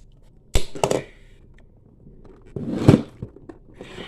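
Handling noise from a plastic action figure and its packaging: a sharp knock about half a second in, a brief clatter after it, and a longer, louder clunk and rustle around three seconds.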